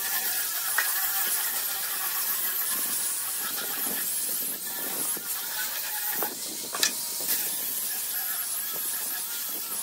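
Small angle grinder with a sanding pad running steadily, its high motor whine over the hiss of the abrasive disc on a pine board. A couple of brief sharp ticks, about a second in and near seven seconds.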